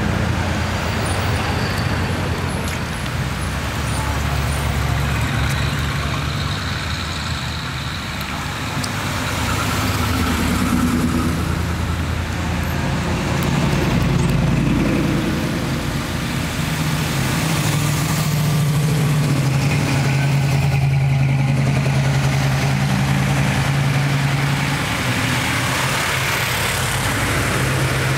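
Old cars and vans driving slowly past one after another, their engines making a steady low rumble that swells and fades as each vehicle goes by.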